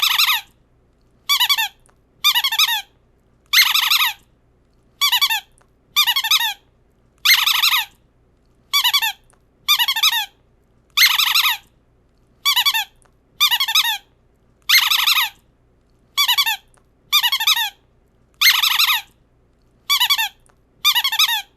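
A high, warbling squeak repeated about once a second, each squeak lasting about half a second with short silences between.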